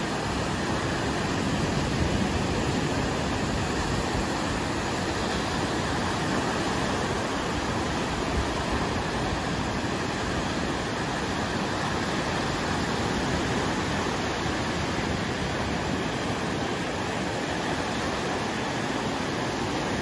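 Lake waves breaking and washing up onto a sandy beach: a steady rush of surf with no single crash standing out.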